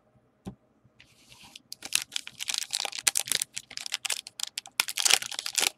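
Foil trading-card pack wrapper being torn open by hand. It starts with a short hiss, then crinkles in dense rapid crackles from about two seconds in.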